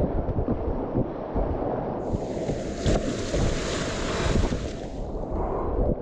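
Rushing whitewater rapids splashing around a kayak, with heavy wind buffeting on the microphone. From about two seconds in until near the end, the water gets hissier and fuller.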